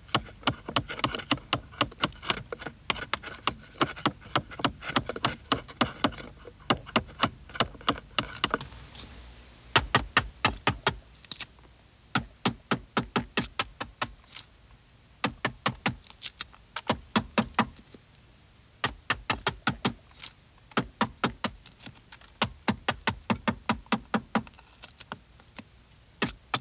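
Mallet striking a Japanese carving chisel (tataki-nomi) to drive it into wood. The blows come as sharp knocks in quick runs of about four a second, with short pauses between runs.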